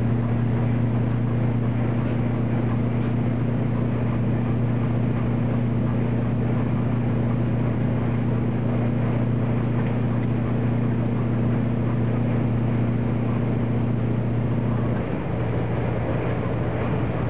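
A vehicle engine droning steadily under road noise, with a low hum that drops slightly in pitch about fifteen seconds in.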